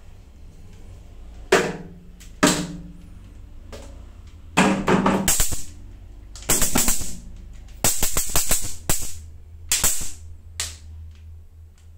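Electric mosquito-swatter racket snapping and crackling as mosquitoes hit its charged mesh: two sharp snaps, then from about four and a half seconds in, repeated bursts of rapid crackling.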